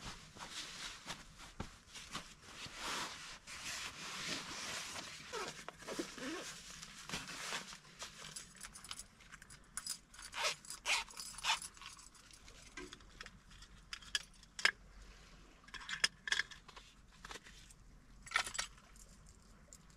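Camping gear being handled: several seconds of rustling and scraping, then a string of separate sharp clicks and knocks.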